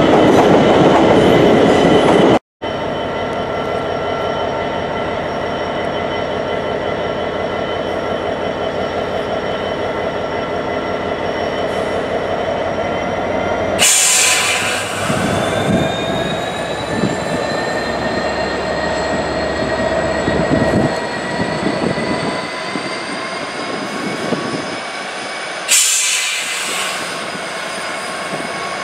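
An electric multiple unit runs loudly at the platform, then cuts off suddenly about two seconds in. A GB Railfreight Class 66 diesel-electric locomotive, with its two-stroke V12 engine, comes in slowly hauling freight wagons. Its steady running sound carries whining tones that slowly rise in pitch, with two short hissing bursts, one about halfway through and one near the end.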